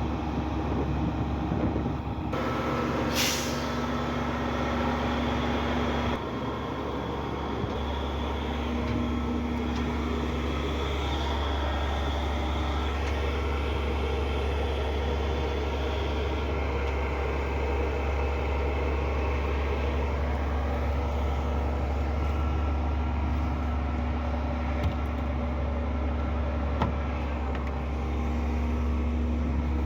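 Concrete truck's diesel engine running steadily with a deep hum, with a short air hiss about three seconds in.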